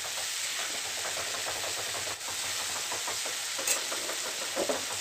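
Diced potatoes frying in oil and spices in a nonstick kadai, sizzling steadily while a spatula stirs them, with small scraping ticks throughout.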